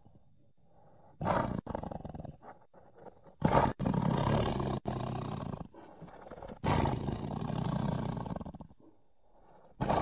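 A series of big cat roars used as sabre-toothed cat (Smilodon) sound effects. A short roar comes a little over a second in. A louder one follows at about three and a half seconds and runs on for about two seconds. A long roar fades out near nine seconds, and another begins at the very end. The roars are separated by abrupt edits.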